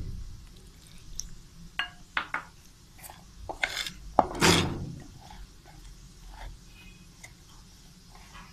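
Metal spoon stirring potato strips in a wet, spiced gram-flour batter in a ceramic bowl, clinking against the bowl. A few light clinks come first, then louder scraping strokes about four seconds in, then softer stirring.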